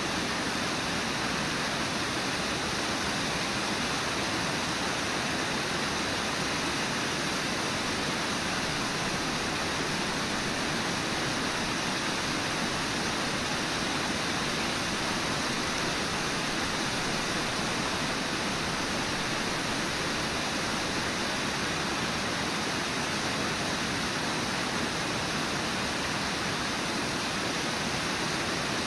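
Steady rush of a wide river waterfall, water pouring over a low rock ledge, even and unbroken.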